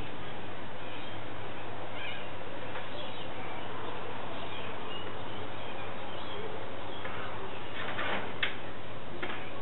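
Birds chirping now and then over a steady background hiss. Near the end there is a short rustle and a sharp click as the TV antenna on its pole is handled.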